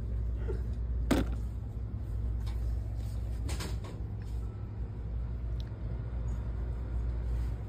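Plastic food storage containers knocking and clacking as they are handled on a store shelf: two sharp knocks, about a second in and again about three and a half seconds in, over a steady low hum.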